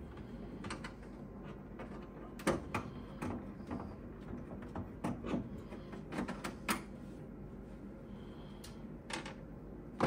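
Screwdriver backing Torx T20 screws out of a boiler's sheet-metal cabinet: scattered light clicks and metallic knocks of the driver, screws and panel being handled, over a faint steady hum.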